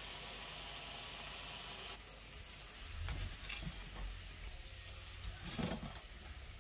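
Hot oil sizzling as battered, deep-fried vegan ham sticks are lifted out with a metal slotted skimmer. About two seconds in the sizzle drops in level, and a few soft knocks follow.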